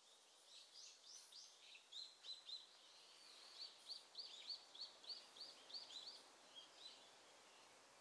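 A small bird calling: a fast series of short, high chirps, quickening to about four a second in the middle and then tailing off, faint over a steady outdoor hiss.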